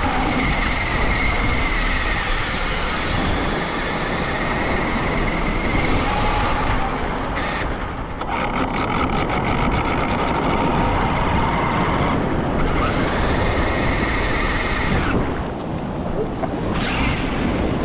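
Radio-controlled monster truck's motor and gears whining as it drives over wet sand and through shallow surf, the whine rising and falling with the throttle, over heavy wind and water noise on the onboard microphone.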